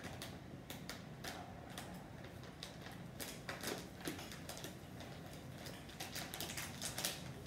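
Rustling of a T-shirt being pulled over the head and put on: a run of soft, quick fabric rustles and small ticks, busiest near the end.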